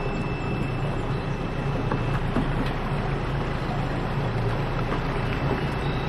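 Boat motor running steadily at low speed, heard from on board.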